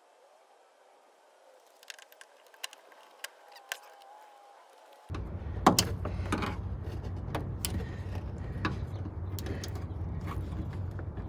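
Scattered clicks and knocks of plastic door trim parts being handled and fitted on a car door panel. About five seconds in, a steady low hum starts suddenly under the clicks.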